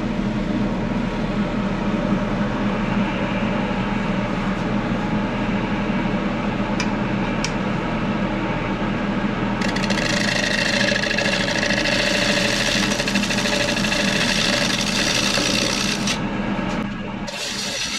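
Midi wood lathe running with a bowl gouge cutting the inside of a spinning black walnut bowl: a steady hum under a scraping hiss from the cut. The hiss grows sharper and stronger about halfway through and drops back near the end.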